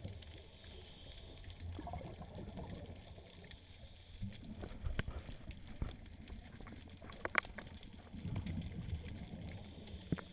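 Underwater ambience on a shallow rocky reef: a low, uneven rumble of moving water with a few sharp clicks about halfway through and a small cluster of clicks a little later.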